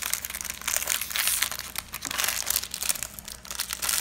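Shiny plastic toy wrapper crinkling in the hands as it is pinched and pulled at, in irregular rustling bursts.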